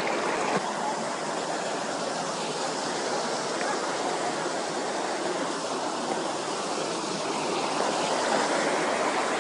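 Fast mountain stream rushing and splashing over boulders, a steady wash of water noise.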